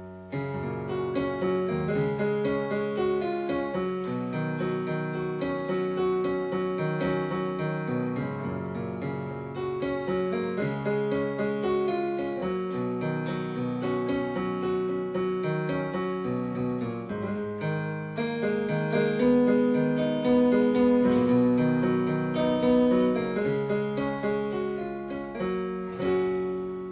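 Piano-like keyboard patch from a MidiPlus hardware MIDI sound module, triggered by an electric guitar through a Fishman TriplePlay MIDI pickup: a melody of held notes and chords, swelling a little louder past the middle.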